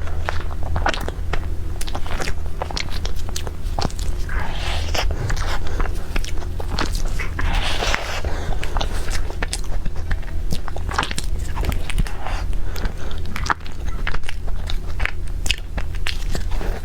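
Close-miked eating: bites and chewing with many small crisp clicks and a few louder wet swells, over a steady low hum.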